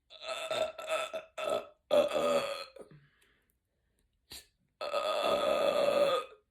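A woman belching after drinking carbonated sparkling water. There is a quick run of short burps in the first three seconds, then one long, steady burp of about a second and a half near the end.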